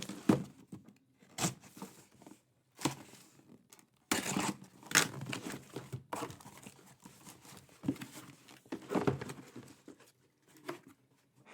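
Trading-card packaging being ripped open in a series of irregular tears and rustles.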